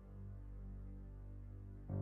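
Soft background music: sustained low keyboard chords fading slowly, with a new chord struck just before the end.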